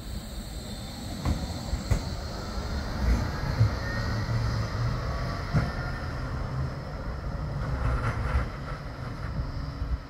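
Bombardier Flexity 2 tram running past and pulling away: a low rumble of wheels on rail, a few knocks as the wheels cross the rail joints and pointwork, and a faint whine in the middle.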